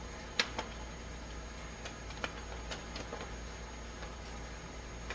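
Scattered light metallic clicks and taps, one sharper about half a second in, as the clutch plates of a Ford 10R80 transmission are worked and turned to settle them into their drum.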